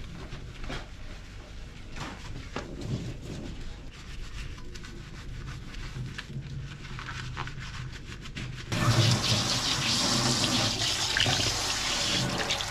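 A sponge scrubbing a soapy stainless steel sink in short strokes. About two-thirds of the way through, the tap is turned on and a stream of water pours steadily into the drain basket, much louder than the scrubbing.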